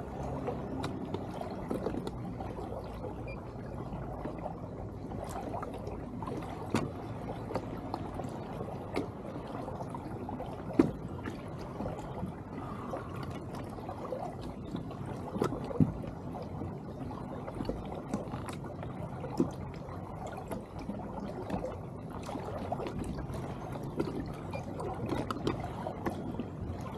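Water lapping and trickling against a fishing kayak's hull as it moves, with scattered light knocks and clicks.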